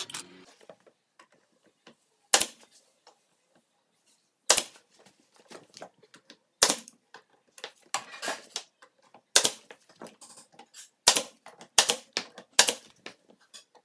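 18-gauge brad nailer firing brads one at a time into wood trim molding: about a dozen sharp shots, spaced a second or so apart, starting a couple of seconds in.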